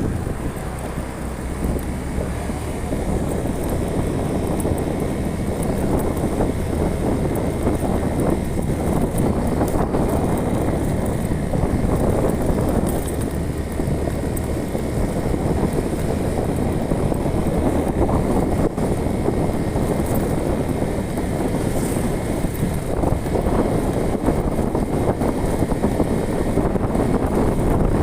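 A vehicle driving steadily along a road: engine and road noise with wind buffeting the microphone.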